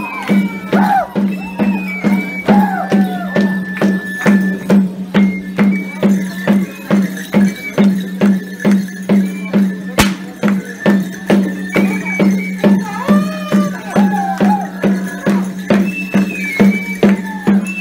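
Traditional folk music: a shrill wind-instrument melody of held and stepping notes over a steady drum beat of about two beats a second, the kind of pipe-and-drum music played for a Tecuanes dance.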